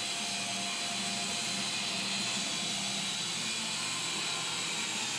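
Small remote-control toy helicopter whirring steadily, its electric motor and rotor giving an even, high whine.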